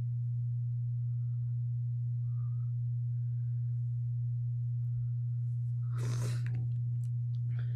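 A steady, unbroken low electrical hum. About six seconds in comes a short breathy rustle.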